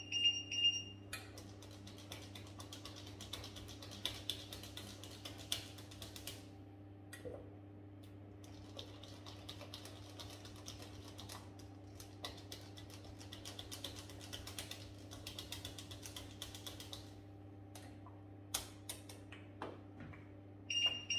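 A wire whisk beating thickening pastry cream in a stainless steel saucepan: a fast, dense run of light metallic ticks as the wires strike the pan, stopping near the end and followed by a few separate taps. A low steady hum runs underneath, and a short electronic beep sounds at the start and again at the end.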